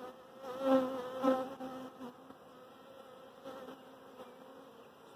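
A swarm of honey bees humming steadily. Twice in the first second and a half, a louder buzz swells as a bee flies close past.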